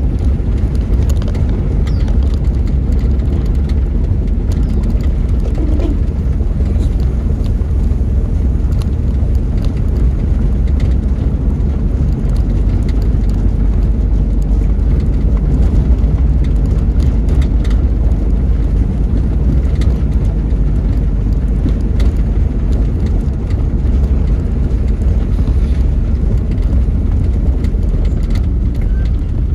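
Steady low rumble of a moving vehicle: engine and tyre noise as it drives along a paved road.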